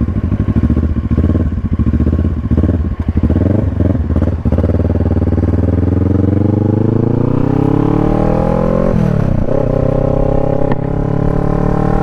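Kawasaki Ninja 650 parallel-twin through an M4 exhaust with its baffle removed, pulling away. The engine runs unevenly at low speed for the first few seconds, then the revs climb steadily through a gear. There is a gear change about nine seconds in, and the revs climb again.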